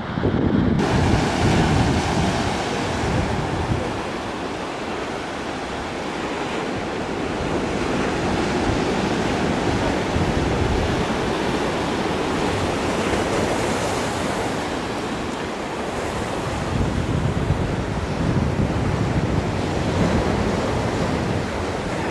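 Sea surf breaking and washing over a rocky boulder shore, with wind buffeting the microphone in gusts.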